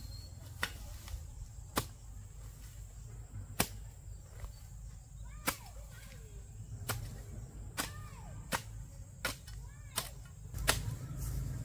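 A series of about ten sharp, short snaps or knocks at irregular intervals of roughly one to two seconds, over a steady low rumble.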